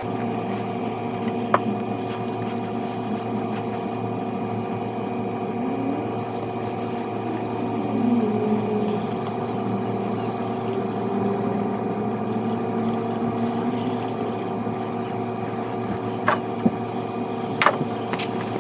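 A steady hum of several held tones, with a few light clicks about a second and a half in and again near the end.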